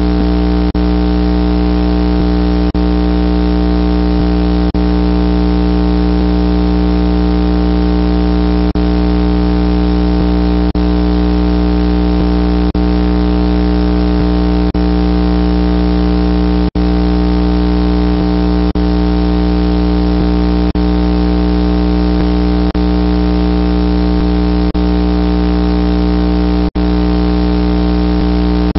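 Loud, unchanging electrical hum, a stack of steady low tones with hiss above, like mains hum on the audio line. A faint click comes about every two seconds, and the sound drops out briefly twice.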